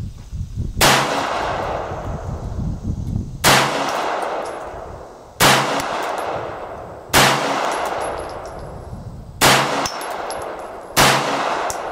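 CZ 82 pistol in 9×18mm Makarov fired six times at a slow, uneven pace, roughly one shot every two seconds, each shot sharp and followed by a long echo dying away.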